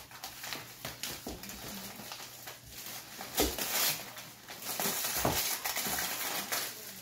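Gift-wrapping paper rustling, crinkling and tearing as a present is unwrapped, in irregular bursts with a few louder rips.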